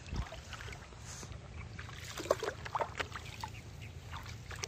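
Water splashing and dripping with a few light knocks as a gill net is handled and lifted out of flood water beside a small boat, over a low steady rumble.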